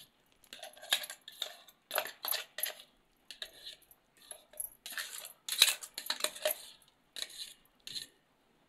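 Metal spoon scraping thick ground tomato sauce out of a steel pot into a ceramic bowl: a run of short scrapes and clinks that stops near the end.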